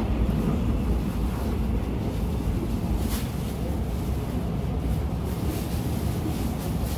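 Busan urban railway train running, heard from inside the car: a steady low rumble with a rushing hiss over it.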